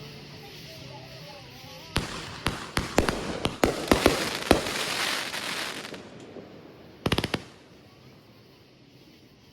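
Fireworks going off: a run of sharp bangs starting about two seconds in, merging into a dense crackle, then a quick cluster of pops near the end.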